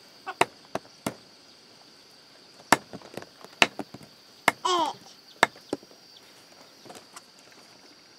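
Irregular sharp chops of a heavy cleaver cutting a roasted civet carcass through meat and bone onto a wooden chopping block, about a dozen blows. A short high-pitched cry is heard about halfway through.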